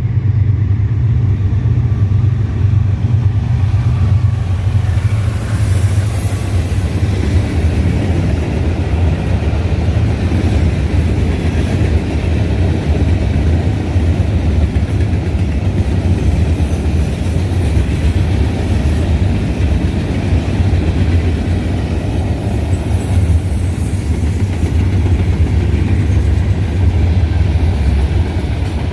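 Freight train passing close by: a loud, steady rumble of wheels on the rails that holds evenly throughout.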